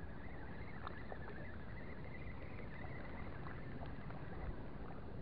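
Steady wash of sea water and wind around anglers wading in shallow water, with a faint thin high tone and a few light clicks.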